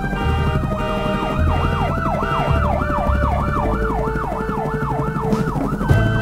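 Electronic emergency-vehicle siren in a fast yelp, sweeping up and down about two and a half times a second, then holding a single high note right at the end. Background music with a low bass line plays underneath.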